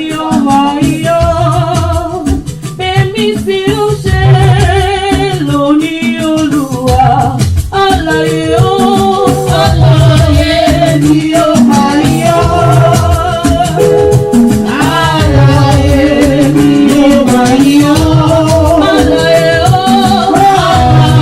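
Gospel singing with a band: voices over a steady beat of drums and bass, with shakers rattling throughout.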